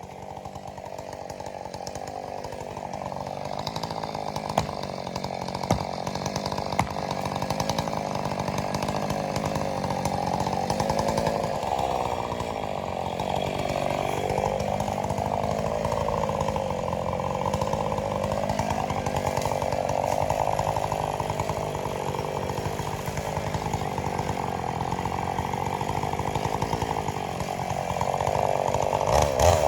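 Two-stroke chainsaw cutting wood, its engine pitch sagging and recovering as the chain loads up in the cut, with a few sharp ticks about five to seven seconds in. The saw revs up sharply at the very end.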